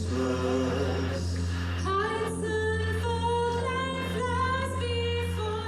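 Vocal music from a Christmas concert: singing in long held notes over a steady low accompaniment.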